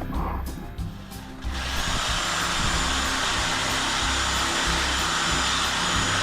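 Background music with a steady beat; about a second and a half in, a handheld power tool starts and runs steadily with a thin, high whine over a loud hiss.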